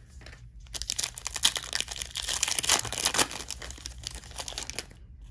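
A trading card pack's wrapper being torn open and crinkled: a dense crackling rustle, loudest for about two seconds in the middle, then dying down to lighter rustles.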